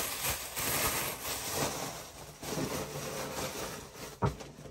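Cloth rustling as a garment is shaken out, handled and put away, with a single knock a little before the end.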